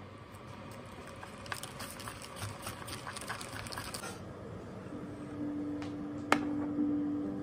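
Large pot of pasta water at a rolling boil, bubbling and crackling. About five seconds in, soft music with steady held notes comes in over it.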